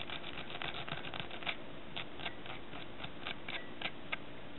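Velcro on a stick rubbed back and forth across a dubbed muskrat-fur fly body, a quick irregular series of short scratchy strokes, about three or four a second. This is brushing out the dubbing fibres to make the thorax fuzzy.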